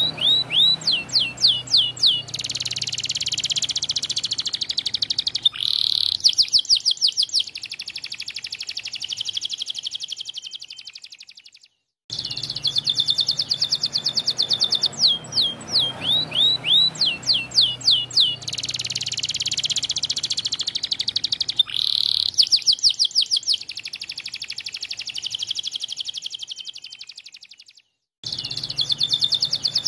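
White domestic canary in full song: runs of rapid, evenly spaced high chirps alternating with a continuous buzzing roll. The song breaks off to a brief silence twice, a little before halfway and near the end.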